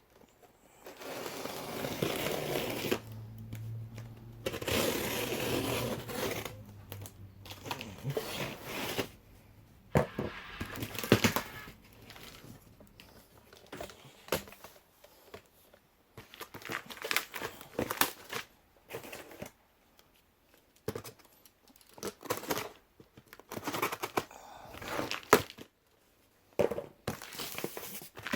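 A shipping box being opened and unpacked: packaging tearing and crinkling in irregular bursts, with sharp clicks and short pauses between them.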